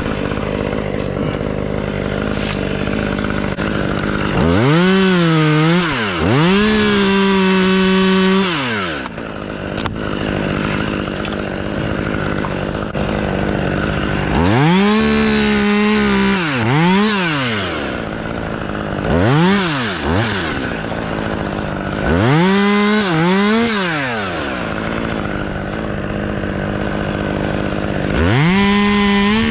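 Chainsaw revved to full throttle four times for a few seconds each, plus one short blip, dropping back to idle in between. The pitch sags briefly during the runs as the chain bites into wood.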